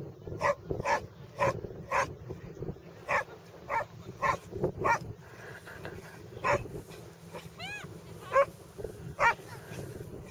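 A dog barks over and over in short, sharp barks, about two a second at first and then more spaced out after about five seconds.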